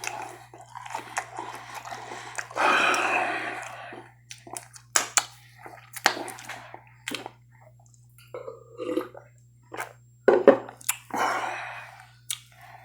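Close-miked eating: chewing a French fry with wet mouth clicks and lip smacks. Two longer breathy, noisy sounds stand out, the louder about three seconds in.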